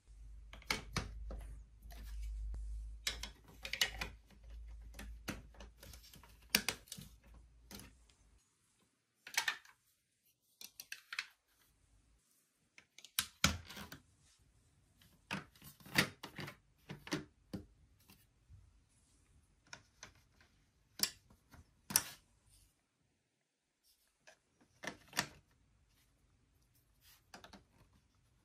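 Large plastic toy building blocks and figures being handled and pressed into place: irregular plastic clicks and clatter, some in quick runs, with a low rumble under the first eight seconds or so.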